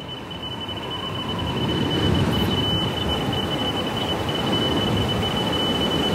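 Opening of an electronic music backing track, fading in as a swelling wash of sound with a steady high tone held over it.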